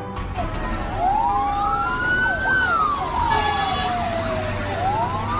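Emergency vehicle siren sounding a slow wail: the pitch rises over about two seconds, falls back more slowly, and starts rising again near the end.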